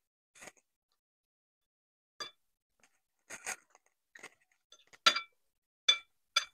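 Metal forks and spoons clinking against ceramic bowls as two people eat, about seven separate light clinks with a short ring, the loudest about five seconds in.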